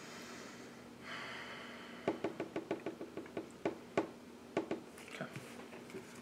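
Trading cards being handled on a tabletop playmat: a soft sliding rustle, then a run of quick, light taps and clicks, a few a second, that stop about five seconds in.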